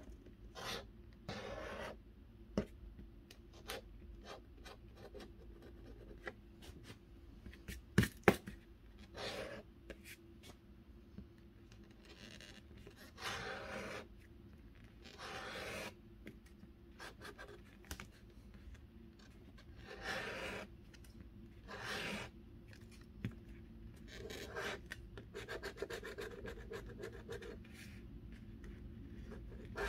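A coin scratching the coating off a paper scratch-off lottery ticket, in repeated short scraping strokes with pauses between. Two sharp clicks about eight seconds in are the loudest sounds.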